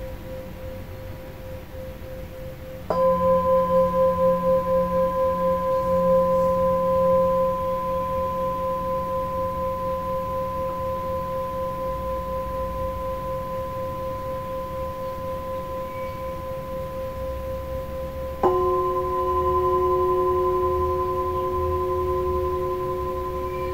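Himalayan singing bowls tuned to F, struck with a padded mallet. About three seconds in, a strike sets off a long ringing tone with a slow wobble that fades gradually. About two-thirds of the way through, a second, lower-pitched bowl is struck and rings on over the first.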